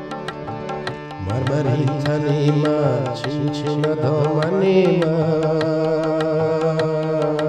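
A man singing a Persian-language song in an amateur home recording, over backing music with a steady percussion beat; the voice comes in about a second in.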